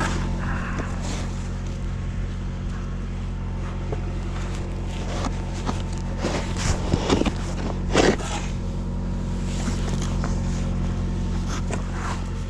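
An engine running steadily at idle, with a few short scrapes of a snow shovel about six to eight seconds in.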